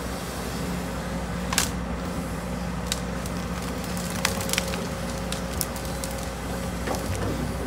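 Case CX210D excavator's diesel engine running steadily with a low hum while the machine swings and digs, with a handful of sharp cracks and clicks over it, the loudest about one and a half seconds in.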